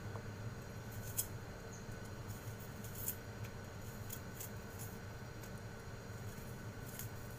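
A few faint, short clicks and taps from handling the glass bowl of a small food chopper, over a steady low room hum.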